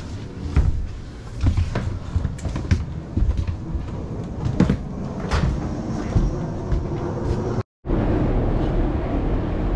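Scattered knocks and clicks with low thumps inside a travel trailer, fitting cabinet doors and footsteps on the camper floor. About three-quarters through, the sound drops out for an instant at a cut, and a steady background noise follows.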